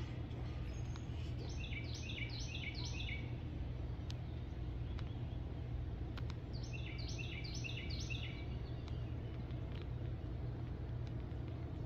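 A songbird singing two short bursts of quickly repeated, swooping notes, each about a second and a half long and several seconds apart, over a steady low background rumble.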